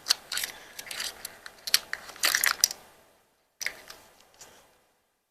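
Packaging and small craft items being handled: crinkling and rustling with sharp clicks, a short pause, then a brief second burst of rustling.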